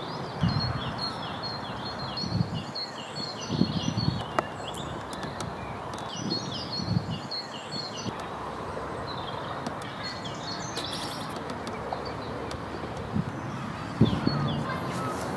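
Birds chirping in quick repeated phrases over a steady outdoor background noise, with a few short low thumps.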